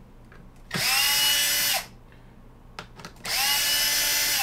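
Milwaukee cordless power screwdriver on its high-speed setting, running twice for about a second each to back out the screws of a 3D-printed panel. Each run spins up quickly to a steady whine.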